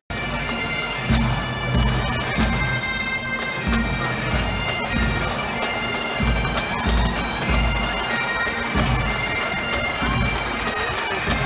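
Pipe band playing: bagpipes sound a tune over steady held drone tones, with drum beats pulsing underneath.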